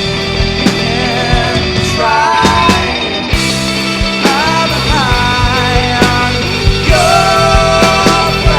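Live rock band playing a song through the PA during a soundcheck: kick and snare drum hits keeping a steady beat under bass, electric guitar with bent notes, and a vocal line.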